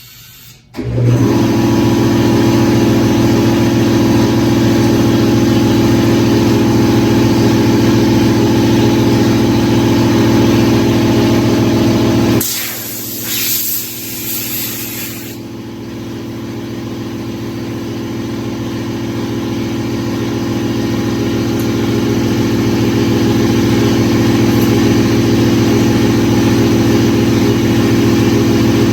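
A motor-driven machine starts about a second in and runs with a steady hum. About twelve seconds in the hum breaks off and a loud hiss of air lasts about three seconds. Then the running sound comes back and slowly grows louder.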